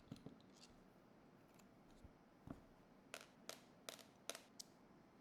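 Faint, short clicks and taps, about half a dozen and mostly in the second half: a Torx driver working small screws out of the Echo Dot's plastic base.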